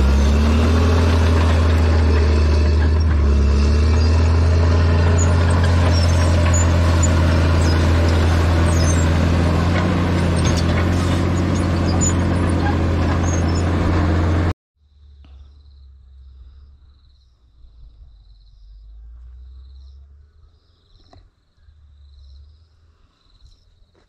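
Komatsu crawler bulldozer's diesel engine running loudly as it clears brush, its pitch wavering a little. It cuts off suddenly about halfway through, leaving a faint high, steady insect trill over light low rumble.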